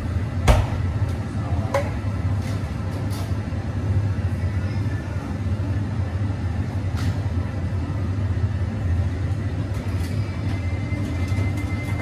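Café work-area ambience behind an espresso machine: a steady low hum with a few sharp clinks of cups or utensils, the loudest about half a second in.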